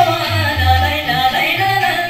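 Music with a singer: a wavering, ornamented vocal melody over a low bass line that steps between notes.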